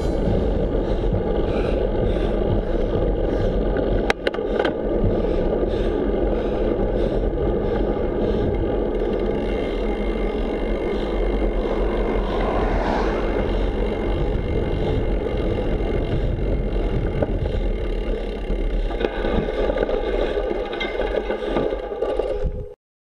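Steady rumbling ride noise from a stem-mounted GoPro on a road bike climbing slowly, with a sharp click about four seconds in and a car passing around the middle. The sound cuts off abruptly just before the end.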